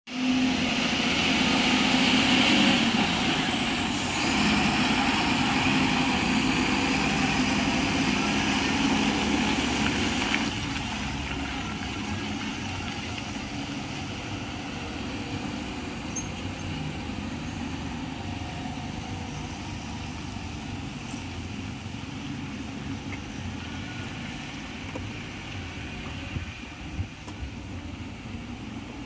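BharatBenz 12-wheeler tipper truck's diesel engine running under load as the truck swings round a tight hairpin bend, with a brief sharp hiss about four seconds in. The sound drops suddenly about ten seconds in and then fades slowly as the truck climbs away.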